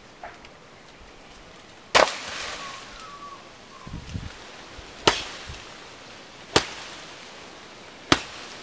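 Blows landing on a banana tree's fibrous trunk: four sharp, hard hits, the last three about a second and a half apart, each ringing briefly. A few softer low thumps come in the middle.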